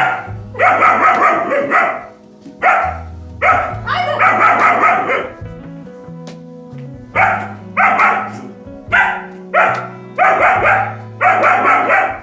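Black German Shepherd puppy barking repeatedly in bouts of several barks with short pauses: alarm barking at a person it treats as a stranger. Background music with low held notes runs underneath.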